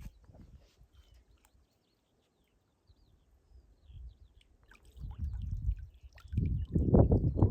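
Wind buffeting the microphone in gusts, quiet at first and then rumbling loudly over the last couple of seconds, with faint bird chirps in the lull.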